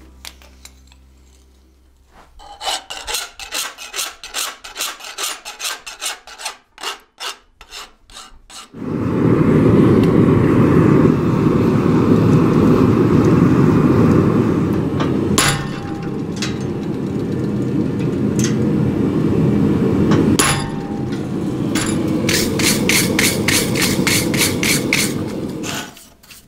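Fast, even wire-brush strokes scrubbing steel hinges, then a loud, steady rush from a propane gas forge running for most of the rest, broken by two sharp clicks. Quick wire-brush strokes start again near the end, over the forge.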